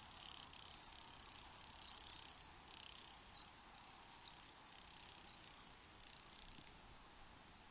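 Crickets trilling in high-pitched bursts of about half a second, five or six times, over a faint steady hiss of desert air. Two faint short chirps sound near the middle.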